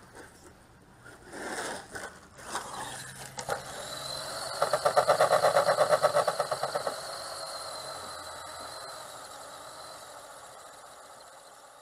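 RC monster truck's motor revving in short bursts, then running on with its tyres spinning while the truck lies on its side. About midway there is a loud rapid pulsing, roughly seven beats a second, followed by a steady high whine that slowly fades.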